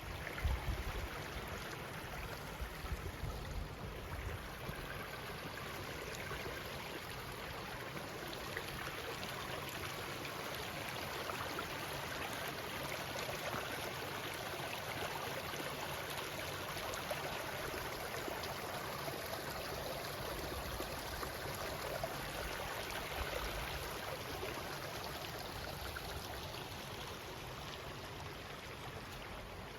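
Steady rush of running water from a mountain creek or falls, an even hiss that swells slightly midway. A few low bumps sound in the first few seconds.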